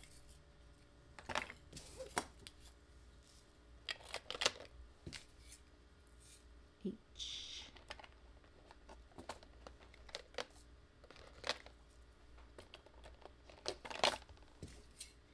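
Small plastic Tic Tac containers filled with diamond-painting drills clicking and knocking as they are handled and set into the slots of a plastic storage case, with a brief rustle about seven seconds in.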